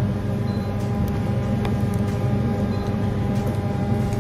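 Steady low machine hum with a few faint clicks and a couple of short, faint high beeps.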